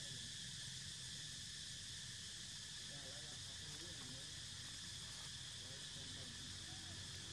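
Steady chorus of insects, a constant high-pitched buzzing drone, over a low background rumble.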